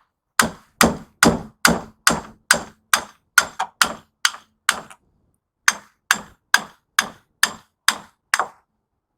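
Hammer blows driving in a cutting tool to free the copper windings of a scrap electric motor. There are eleven even strikes at a bit over two a second, a pause of about a second, then seven more.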